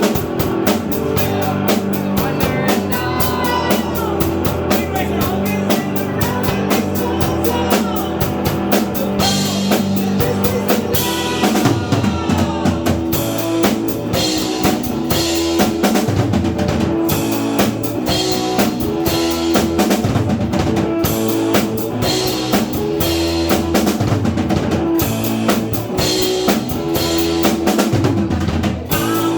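A band playing live, with a drum kit's bass drum and snare keeping a steady beat under held bass notes and a melodic line.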